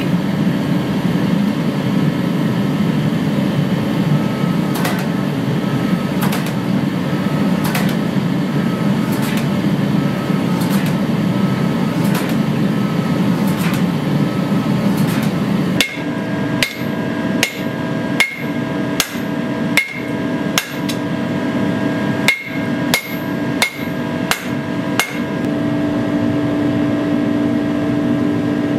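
A powered forging machine runs with a steady hum while its dies strike the red-hot sword blank in regular blows, at first about one every second and a half. Partway through the blows become sharper and quicker, with a ringing metallic clink, and near the end they stop, leaving the machine's steady hum.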